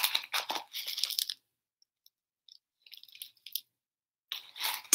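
Plastic toy trowel scraping and scooping dirt in a plastic tub: a quick run of short gritty scrapes in the first second and a half, then a few fainter ones, and more scraping just before the end.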